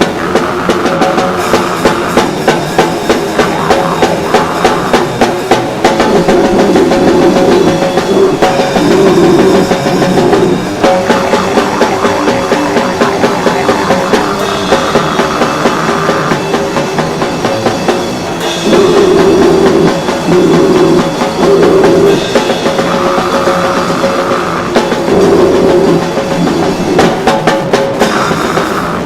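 A rock band playing loudly, led by a drum kit with steady, regular hits over sustained guitar and bass.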